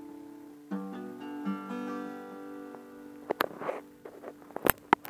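Acoustic guitar ending a song: a last chord struck about a second in and left to ring out. Near the end come a few sharp knocks and a brief rustle, louder than the guitar.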